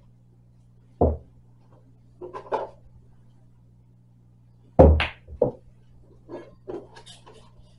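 A pool shot: the cue striking the cue ball and balls clacking together about five seconds in, with a second knock half a second later. A single dull thump comes about a second in, and softer knocks scatter through the rest.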